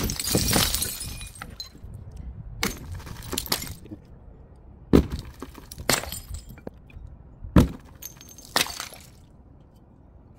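Powder-filled glass bottles dropped from a height and shattering on paving stones: a loud smash at the start, then about eight separate sharp cracks and clinks of breaking glass over the following seconds.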